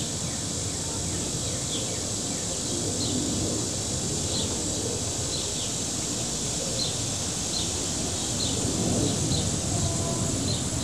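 Small birds giving short, high chirps about once a second over a steady high-pitched insect drone and a low rumble.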